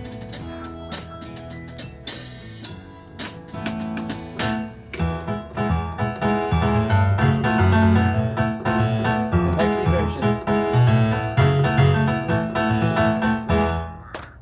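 Instrumental rock music without singing: keyboard chords over a drum kit, thickening and getting louder about five seconds in, then stopping abruptly.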